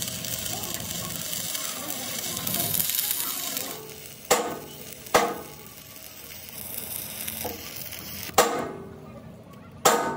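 Steady crackling hiss of arc welding on steel, stopping about four seconds in, followed by four sharp, ringing metal clangs spaced a second or more apart.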